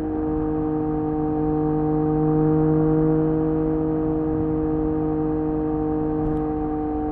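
Triumph Street Triple 765 RS inline three-cylinder engine idling steadily through an SC Project S1 titanium exhaust, holding one even pitch.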